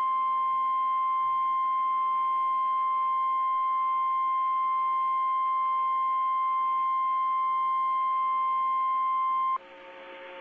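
NOAA Weather Radio warning alarm tone, a single steady 1050 Hz tone, cutting off suddenly about nine and a half seconds in and leaving the faint hum and hiss of the radio reception. The tone announces a warning broadcast, here a severe thunderstorm warning.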